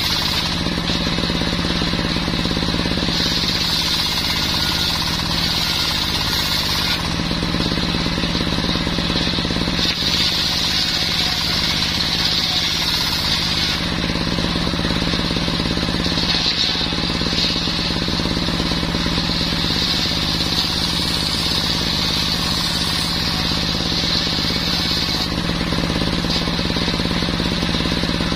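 Brush cutter's two-stroke engine running with a circular saw blade fitted, sawing mahogany: a steady loud buzz, with a higher whine that comes and goes in stretches of a few seconds.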